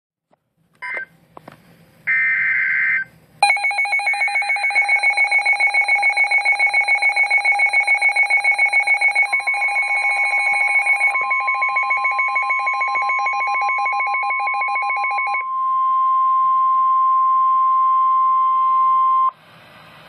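Emergency alert tones from NOAA Weather Radio through a weather alert radio's speaker, signalling a Special Marine Warning. Short bursts of data screech come first, then the radio's own rapid pulsing alarm beep. A steady warning tone joins about nine seconds in and continues alone after the beeping stops, cutting off about a second before the end.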